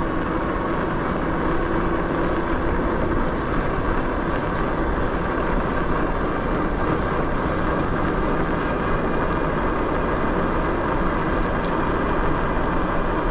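Steady rush of wind and tyre noise from an electric bike being ridden, with a faint steady whine during the first few seconds.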